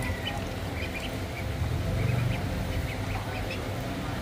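Ducklings peeping in many short, high chirps while feeding, over a steady low hum that swells briefly about halfway through.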